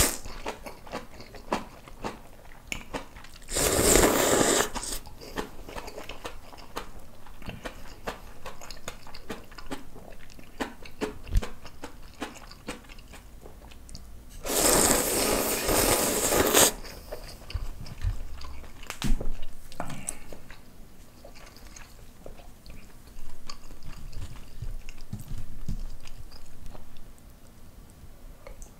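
Close-up noodle slurping and chewing of instant ramyeon noodles: two long slurps, around four seconds in and again around fifteen seconds in (the second about two seconds long), with wet chewing and small clicks in between.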